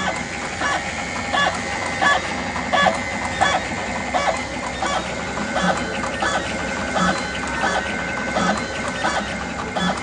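Automatic wire cutting and stripping machine running through its cycle: a steady motor whine with a sharp click from the cutting and stripping blades about three times every two seconds.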